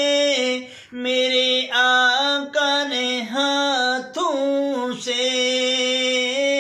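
A man singing a naat unaccompanied, holding long drawn-out notes that step up and down in pitch, with short breaths between phrases.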